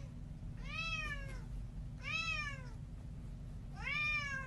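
A cat meowing three times, drawn-out calls that each rise and then fall in pitch, about a second apart.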